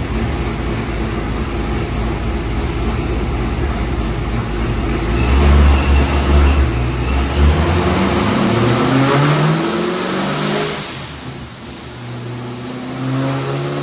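ProCharger-boosted C7 Corvette Z06 V8 of about 1000 hp running loud, surging in a deep low rumble about five seconds in, then accelerating hard with the engine pitch climbing for several seconds. The note falls away about eleven seconds in and picks up again near the end.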